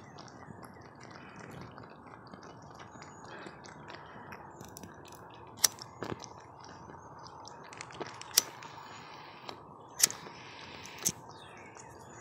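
A pocket lighter struck about five times, sharp clicks a second or two apart, igniting natural gas leaking up through the ground, over steady faint background noise.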